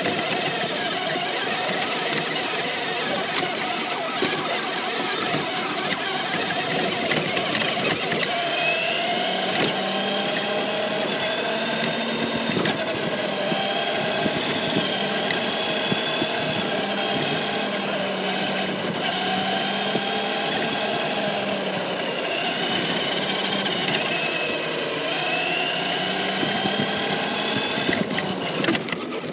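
Traxxas radio-controlled car driving along: its motor whines, the pitch rising and falling as it speeds up and slows, over a steady rush of wheel and wind noise.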